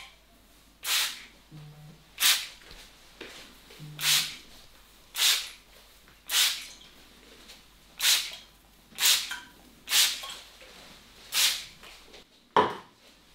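Hands stroking and rubbing over the scalp in a head massage: a swishing rub about once a second, with a sharper hit near the end.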